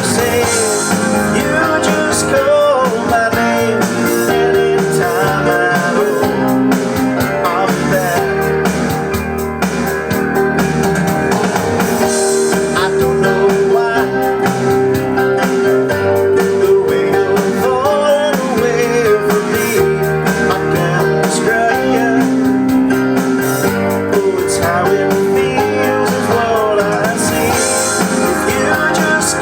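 A Roland E-500 keyboard playing back a homemade 1990s MIDI backing track from floppy disk, a full pop-rock arrangement, with keyboard played along over it.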